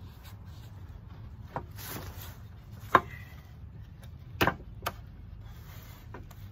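Teak chair parts knocking together as a stiff joint is worked into place by hand: a few sharp wooden knocks, the loudest about three seconds in, then a quick double knock and one more a second and a half later.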